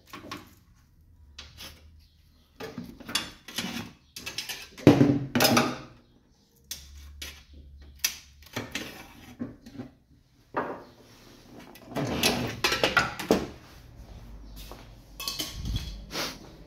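Irregular knocks, clatters and scrapes of things being handled, in bunches with short pauses between, loudest about five seconds in and again about twelve seconds in.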